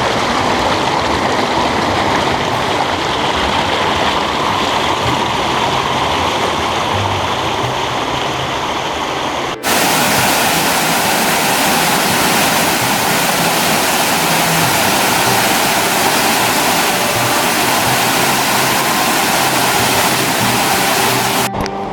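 Waterfall: a dense, steady rush of falling water. About ten seconds in it cuts abruptly to a second, louder and brighter stretch of falling water.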